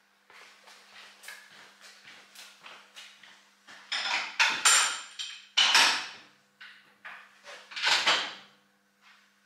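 Footsteps across the floor of a mechanical signal box, then loud metallic clanks and rattles from the lever frame as point-lock levers are thrown: a cluster of heavy clunks about four to six seconds in and another near the end.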